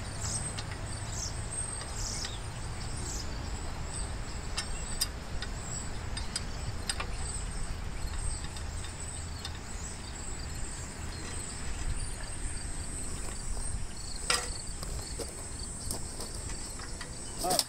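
Outdoor background of insects chirping steadily at a high pitch over a low, steady rumble. A few sharp metal clicks come as a steel handlebar and bracket are worked into place on a walk-behind tractor.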